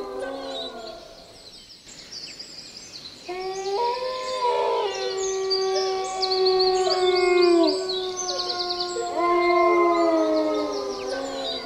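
Dogs howling in long, drawn-out notes, several voices at once, each note sliding down in pitch as it ends. A howl dies away in the first second, a new chorus starts about three seconds in, and another comes near the end. Small birds trill high above.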